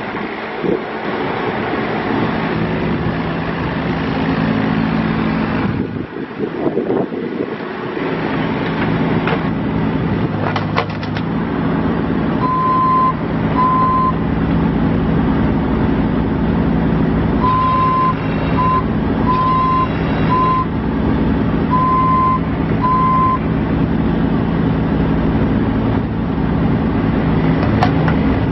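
IHI 30VX3 mini excavator's diesel engine running steadily. An electronic alarm beeps in short pulses, a few times near the middle and again in a longer run a little later.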